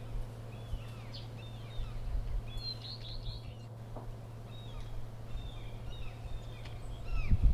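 Small birds chirping: many short, quick, falling chirps, bunched most thickly about three seconds in. Under them run a steady low hum and bursts of low rumble about two seconds in and again near the end.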